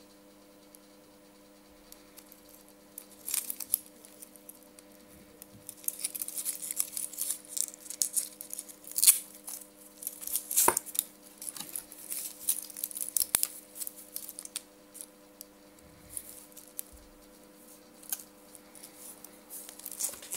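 Crinkling and rustling of plastic packaging film and bag being handled and opened, with scattered clicks and taps and one sharp click about halfway through.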